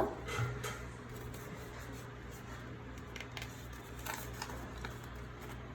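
A few faint clicks and taps as small plastic toy pieces are handled, over a steady low hum.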